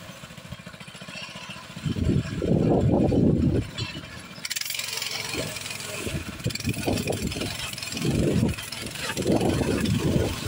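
Homemade trike's single-cylinder walk-behind-tractor engine revving in repeated surges and dropping back between them, the longest surge about two seconds in.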